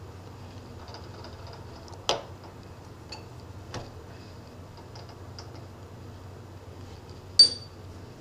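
Metal lathe stopped while its tool post and slide handles are worked by hand: a few sharp metallic clicks and clinks, the loudest about two seconds in and a ringing clink near the end, over a low steady hum.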